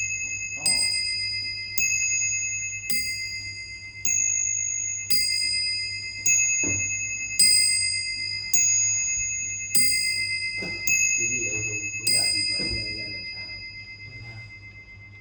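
A metal chime struck slowly and evenly, about one stroke every 1.1 seconds, eleven strokes in all. Each stroke rings on with a bright, clear tone into the next, and the last one is left to ring out and fade.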